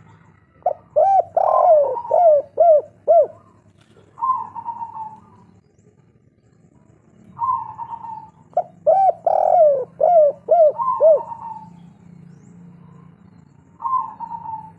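Spotted dove (tekukur) cooing, the local 'kuk 3' type. Two song phrases about eight seconds apart, each a quick run of short coos, with single drawn-out coos in the pauses between them.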